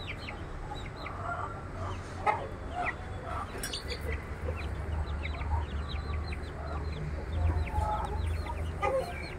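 Month-old aseel chicks peeping, with many short, high chirps that fall in pitch, several a second, over a steady low hum.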